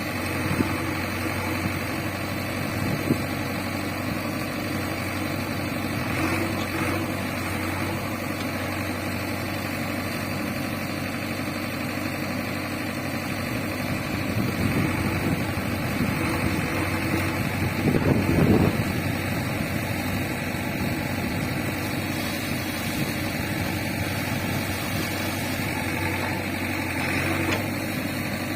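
Diesel engine of a JCB 3DX backhoe loader running steadily at low revs, with a brief louder surge about eighteen seconds in.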